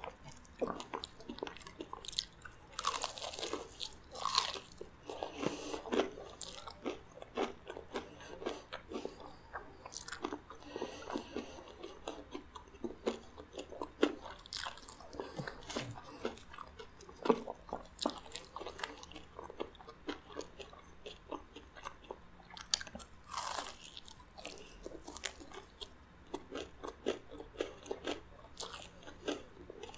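Crispy-coated fried chicken being bitten and chewed close to the microphone: a run of crunches of the coating, with a few louder bites.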